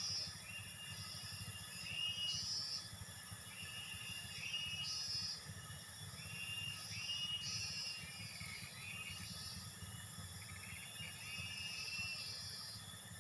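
Outdoor ambience: short chirping calls repeating about once a second over a steady high hiss and a low rumble.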